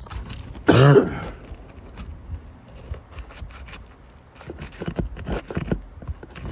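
Asphalt roof shingles being pried up and worked loose: scraping and clicking, with one brief loud pitched squeal about a second in and a run of scrapes and clicks near the end.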